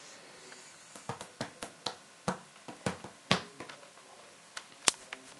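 Irregular series of sharp clicks and snaps as rubber bands are worked on a plastic loom with a plastic hook, the bands snapping on and off the pegs. The clicks start about a second in, with a louder one near the end.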